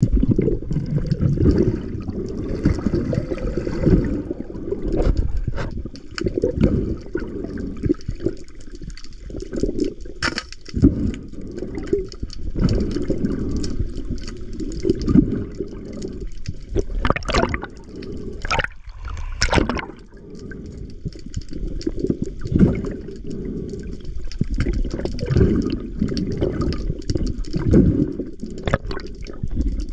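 Muffled underwater water noise, the uneven low wash of water moving around a camera housing as a freediver swims. A few sharp clicks or knocks come through around the middle.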